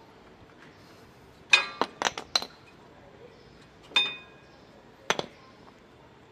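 Metal brake parts clinking as they are handled and set down. There is a quick run of four ringing clinks about a second and a half in, then a single clink near four seconds and a double one near five.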